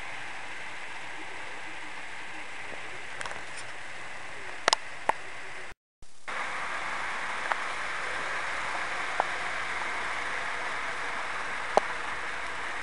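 Steady whirring hiss of a model train running on the layout's track, with a few sharp clicks; the sound cuts out for a moment about six seconds in.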